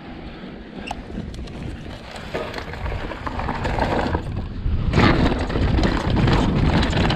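2020 Vitus Sommet CRS mountain bike ridden over a dirt trail, its tyres rumbling on loose ground, with small clicks and rattles from the bike. Wind noise on the action-camera microphone builds with speed, growing louder and loudest from about five seconds in.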